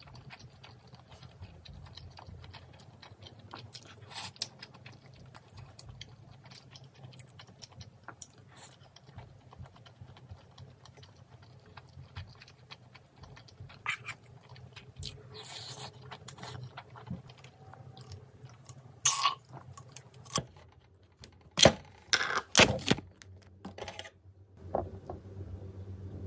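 A person chewing food close to the microphone, with soft crunches and small clicks over a low steady hum, and a few louder sharp clicks or bites in the last third.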